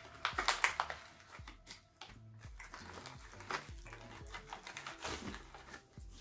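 Crinkly plastic snack pouch rustling, loudest about half a second in, then a few scattered crunches of roasted broad bean snacks being eaten, over quiet background music.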